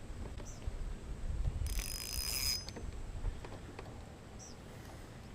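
A short rasping mechanical burst, just under a second long, about two seconds in, over a low rumble of handling on a boat. A bird chirps twice.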